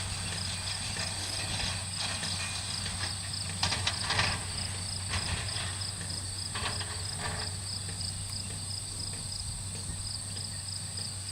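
Crickets chirping steadily in a field, a high continuous trill with a pulsing chirp beneath it, over a low steady hum; a few knocks sound about four seconds in.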